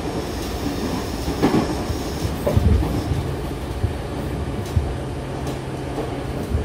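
Meitetsu 5000 series electric train running, heard from inside the car: a steady rumble of wheels on rail, with a few louder clacks about one and a half and two and a half seconds in. A steady low hum joins about three seconds in.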